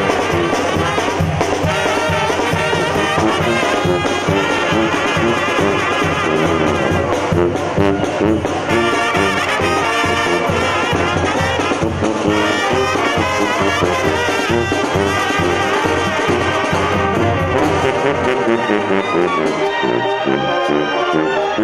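Live Mexican banda playing: trumpets, trombones, alto horns and a sousaphone carrying the tune over a tambora bass drum, cymbals and timbales keeping a steady beat.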